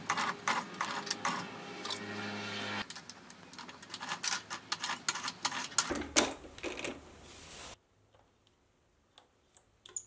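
Mini metal lathe running with rapid ticking from its change-gear train while a homemade threading tool cuts an internal 1/4-inch BSP thread in an acetal plastic part; the motor stops about three seconds in. Irregular clicks and knocks follow as the plastic part is handled, dying to near silence with a few faint clicks near the end.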